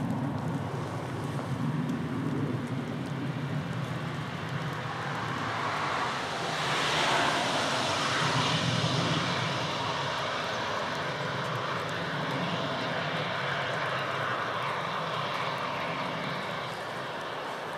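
ICE high-speed train approaching on an electrified main line: a steady rush of wheel and air noise over a low hum, swelling to its loudest about seven to nine seconds in.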